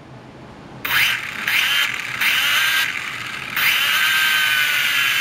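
H8C quadcopter's small electric motors spinning up as the throttle is eased on: a high whine that starts about a second in, cuts in and out in short bursts with the pitch rising, then runs steadily from about halfway.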